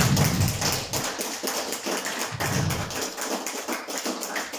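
Audience applauding, a dense mass of claps that thins out and fades near the end.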